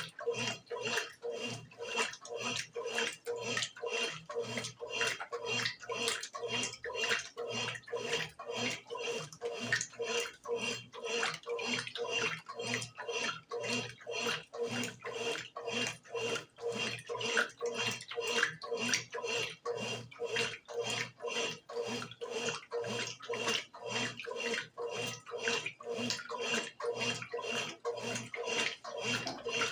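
Brastemp BWG11 11 kg washing machine washing on its bed-and-bath cycle: water sloshing through the load in even strokes, about two to three a second, over a steady motor hum.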